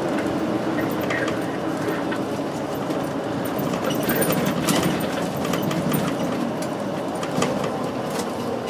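Diesel engine of a city route bus running steadily as it drives along, heard from inside the passenger cabin, with a low hum and occasional light rattles and clicks.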